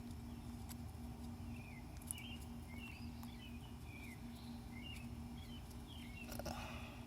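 Small birds chirping in short, repeated calls over a steady low background rumble, with a few faint clicks and a brief scrape near the end.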